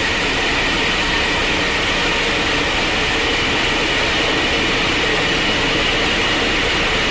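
Wind tunnel running at high airspeed: a steady, even rushing noise with a faint high whine held throughout.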